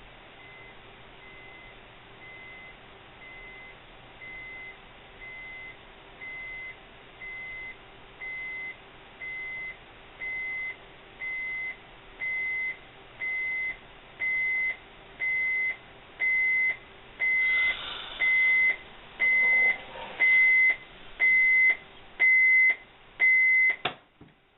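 Electronic beeper sounding one short steady beep about once a second, each beep louder than the last, with some rustling in the last few seconds; the beeping cuts off abruptly with a click near the end.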